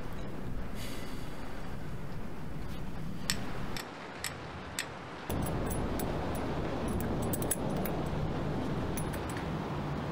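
Small metallic clicks and clinks as a small metal object is handled, a few sharp ones in the middle and a quick run of light clinks later on, over a steady low hiss.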